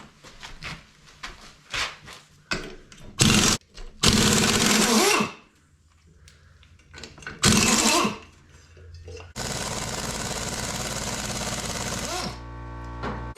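Power wrench, likely an impact wrench, loosening bolts on a Ford 460 big-block engine. It runs in several short bursts, then a longer run of about three seconds that winds down near the end, with light clicks and clatter of parts and bolts before it.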